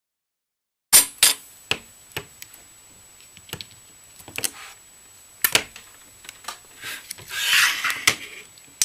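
Plastic battery-pack casing handled and pried apart by hand: a scatter of sharp clicks and knocks starting about a second in, with a longer scraping rustle near the end.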